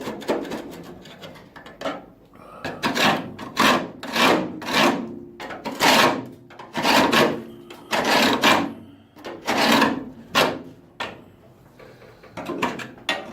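A hand tool scraping bare car-body sheet steel in repeated back-and-forth strokes, roughly one stroke a second, as old metal is cleaned up where the floor was removed.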